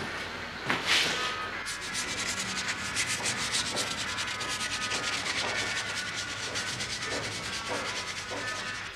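Hand rubbing quickly back and forth over a wooden frame, a fast run of even rasping strokes. A single louder scrape comes about a second in.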